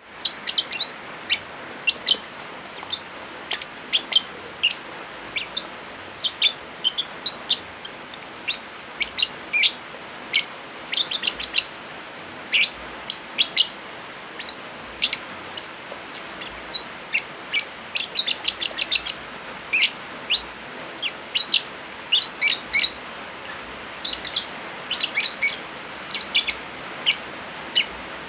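Lovebirds chirping in short, sharp, high calls, often in quick rapid-fire clusters, over a steady hiss of rain.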